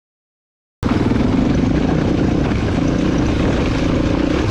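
Honda XR400R dirt bike's four-stroke single-cylinder engine running, cutting in abruptly about a second in.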